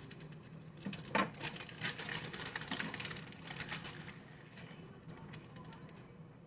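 Kitchen handling noises during food preparation: a sharp knock about a second in, then a couple of seconds of crackly rustling that fades out.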